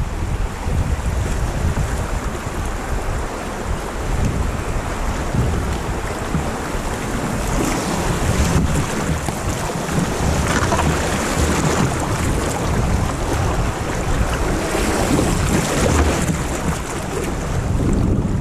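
Wind buffeting the microphone over water rushing and splashing along the side of a moving canoe. The water hiss grows brighter in the middle of the stretch as the canoe crosses choppier water.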